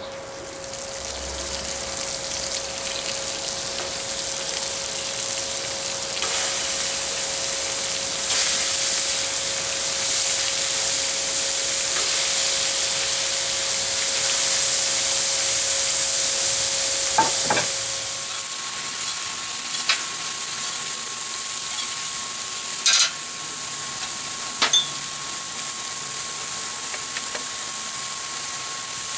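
Hamburger patties and bacon sizzling on the hot steel of a Blackstone flat-top griddle: a steady frying hiss, with a few sharp clicks in the second half.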